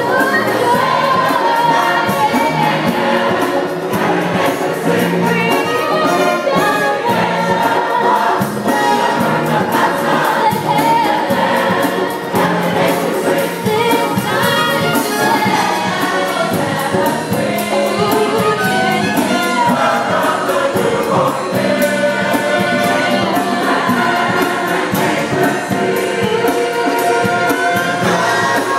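Church choir singing with instrumental accompaniment.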